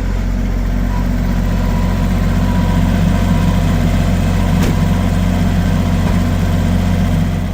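Vehicle engine idling close by: a steady, loud low drone that does not change in pitch.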